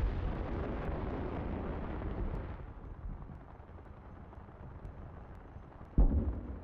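The roar of an explosion fading over a couple of seconds into a low rumble. About six seconds in, a second explosion hits suddenly.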